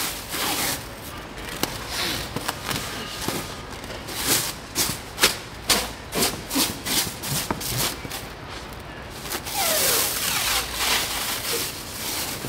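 Plastic stretch wrap being pulled off its roll and wound tight around a chair, crackling and rasping as it stretches: a quick run of short crackles through the middle, then a longer steady rasp near the end.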